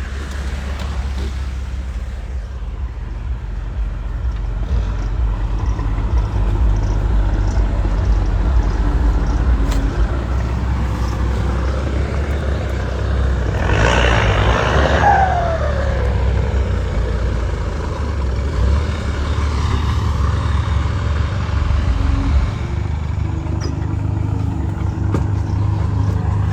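Vehicle engine running with a steady low rumble; about halfway through it briefly gets louder, with a falling whine.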